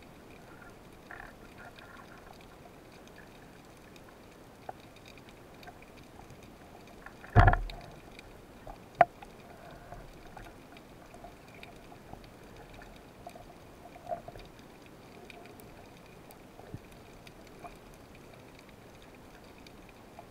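Underwater ambience heard through a waterproof camera housing on a speargun: a faint steady hiss with scattered small clicks and ticks. A loud dull thump comes about seven seconds in, and a sharp click follows a second and a half later.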